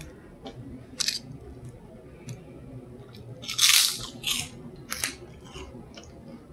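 Crunching of a microwaved pork rind as it is bitten and chewed: a few short, crisp crunches, the loudest and longest about three and a half seconds in.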